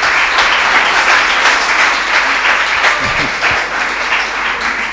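Audience applause: a hall full of people clapping steadily, easing off slightly near the end.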